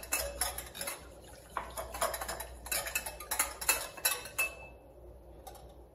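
Wire whisk beating chia seeds into almond milk in a glass bowl: quick clinking strokes of the wires against the glass, with a short lull about a second in, tailing off near the end.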